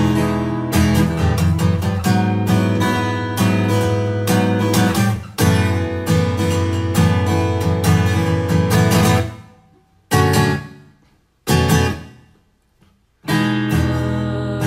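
Acoustic guitar strumming chords in an even rhythm. A little after nine seconds in, the strumming breaks off into two single chords left to ring out, a brief pause, then the strumming starts again near the end.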